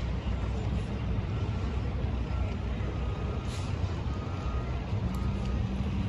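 SUV driving past on the road, a steady low rumble of engine and tyres, with a brief hiss about halfway through.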